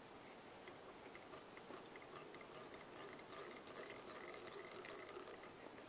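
Faint, quick, irregular light clicks and ticks, thickest in the middle, over quiet room tone.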